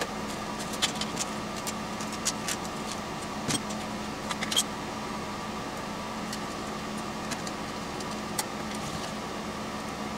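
Scattered light clicks and taps as small metal parts and hardware are handled at a workbench, most of them in the first half, over a steady background hum.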